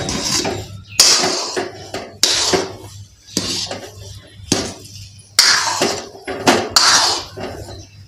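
Steel spatula scraping and stirring thick dal halwa around a metal kadhai, a sharp metal-on-metal scrape about once a second.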